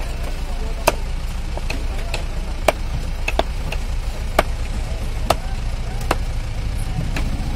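A large hand knife chops through rohu fish into steaks on a round wooden chopping block. Sharp chops come about once a second at irregular spacing, over a steady low background rumble.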